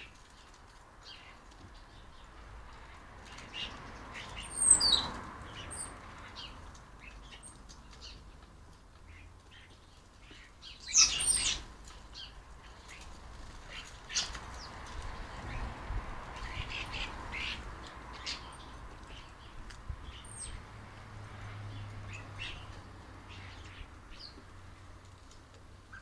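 Small garden birds chirping in short, scattered high-pitched calls, with two louder brief bursts about five and eleven seconds in.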